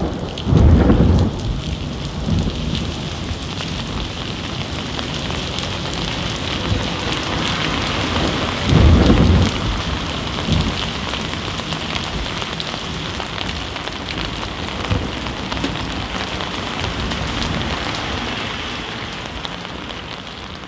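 Steady rain hissing, with two loud thunder rumbles, one about a second in and another about nine seconds in; the rain fades down near the end.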